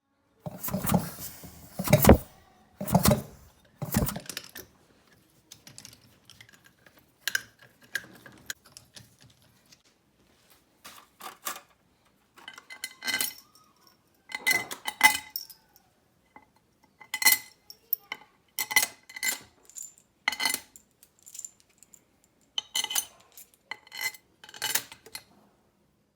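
Metal tools and engine parts clanking and clinking against each other as the motor is worked on. A few heavy clanks come in the first seconds, then a run of lighter metallic clinks that ring briefly.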